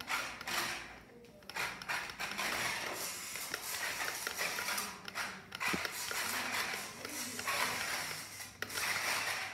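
Small battery-powered RC rock-crawler car's electric motor and gears running as it climbs over a row of books. It runs in a series of spurts with brief pauses between them.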